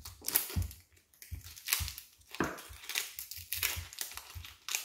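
Dry, papery outer layers of a brown onion crackling and tearing as they are peeled off with a knife, in a quick irregular series of crisp crackles, with a few dull knocks against a wooden board.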